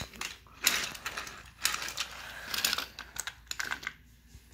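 Toy trains and wooden track pieces being handled, clicking and clattering in several clusters of quick knocks about a second apart.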